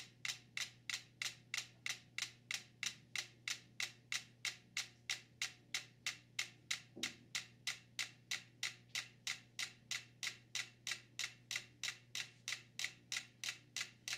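Five mechanical pendulum metronomes ticking in unison: single sharp clicks, evenly spaced at about three and a half a second. This is the sign that they have fallen into spontaneous synchronization through the board they stand on, which rolls on two soda cans.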